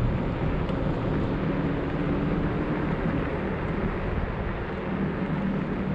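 Steady rushing noise of riding an electric scooter: wind on the microphone and the wheels rolling over pavement, with a faint low hum in the first few seconds.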